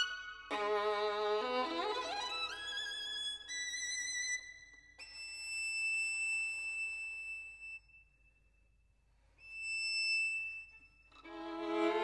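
Background music: a single melodic line played with vibrato, with a rising slide about two seconds in, long held high notes in the middle, and a short pause before the playing picks up again near the end.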